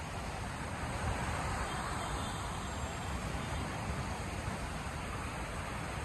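Steady rushing noise of sea surf and wind, swelling a little about a second or two in.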